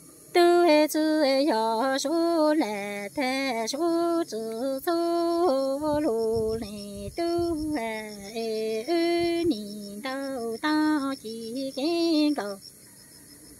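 A woman singing kwv txhiaj, traditional Hmong sung poetry, solo and unaccompanied, in phrases of long, wavering held notes. The singing starts about half a second in and stops about a second before the end.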